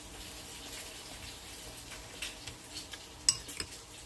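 A metal spoon clinking lightly against a ceramic soup bowl while scooping soup. There are a few scattered clinks, and the sharpest comes about three seconds in.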